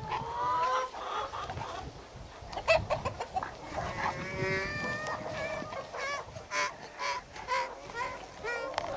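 Two Labrador retrievers play-wrestling, giving a string of high-pitched whines and yelps, some drawn out and some short and sharp.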